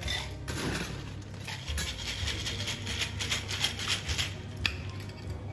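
Ice cubes going into a metal cocktail shaker, then ice shaken hard inside the steel shaker: a fast, even rattle that stops with a sharp clack near the end.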